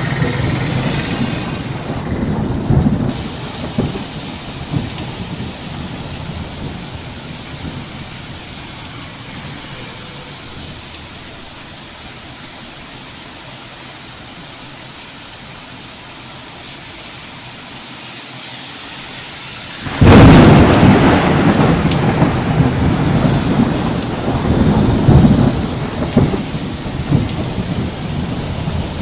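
Thunderstorm with steady rain, while a roll of thunder dies away over the first several seconds. About twenty seconds in, a sudden loud thunderclap breaks out and rumbles on, swelling again a few seconds later.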